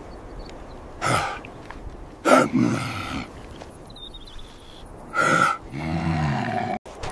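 A man's voice making short, breathy vocal bursts, three of them spaced a second or more apart, then a longer pitched utterance near the end, not in recognisable words.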